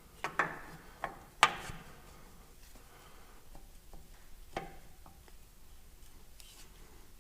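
Several sharp clicks and knocks from hand work on the tractor's tach drive as it is pushed back into place. Two come close together near the start, the loudest about a second and a half in with a short ring after it, and a lighter one around four and a half seconds in.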